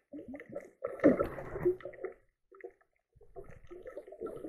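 Underwater bubbling and gurgling as a diver's air rises in bubbles, coming in uneven bursts with a short break about two and a half seconds in.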